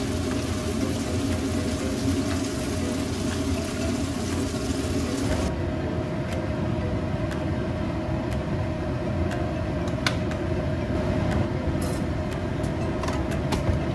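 Steady machine hum with a low drone. Light clicks and taps come in the second half as a small spoon and utensils are handled at the wok.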